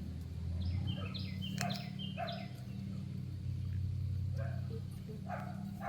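A run of short, high bird chirps for the first couple of seconds and a few more near the end, over a steady low hum.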